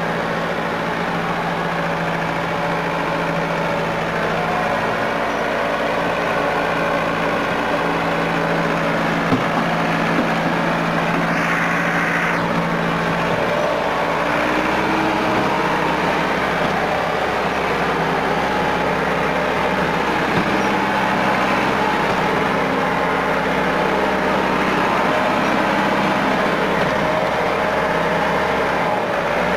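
Massey Ferguson 375 tractor's four-cylinder diesel engine running steadily under heavy load as it strains to pull a loaded sugarcane trolley. Its note shifts about halfway through.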